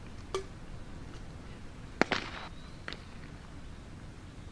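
A pitched baseball smacking into the catcher's leather mitt: one sharp crack about two seconds in, with fainter knocks before and after it.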